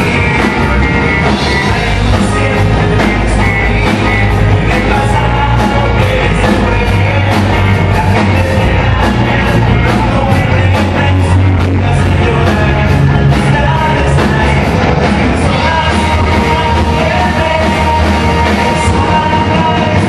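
Live rock band playing loudly, a male singer singing into a microphone over electric guitars and a steady drum beat.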